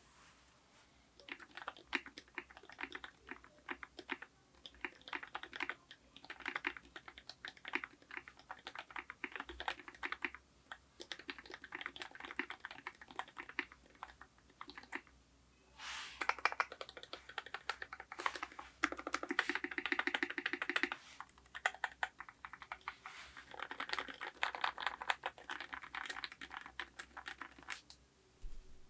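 Typing on a Vast 60 mechanical keyboard with lubed Cherry MX Black linear switches, an FR4 plate and EPBT keycaps: rapid runs of keystrokes starting about a second in, with short pauses between runs.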